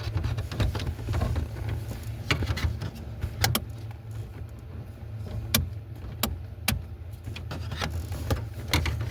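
Scattered light clicks and knocks of hands and tools working around the steering column under a truck's dashboard, over a steady low rumble.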